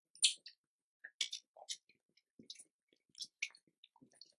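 Sparse, irregular light crackles and rustles of dry leaves under a monkey's hands and feet as it shifts on leaf-strewn steps.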